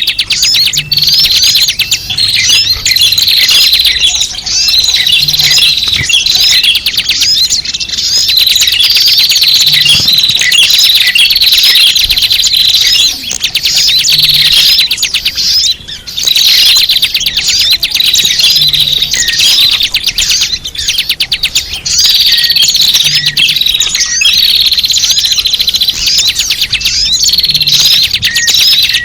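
Many small birds chirping and twittering at once: a loud, dense, continuous flock chatter of overlapping short chirps and trills. It is the kind of noisy small-bird chorus played as a lure call for trapping small birds.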